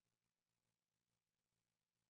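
Near silence: only a faint noise floor.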